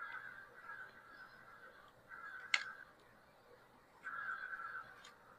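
A crow cawing in the background, a string of raspy calls about every two seconds, with a single sharp click about two and a half seconds in.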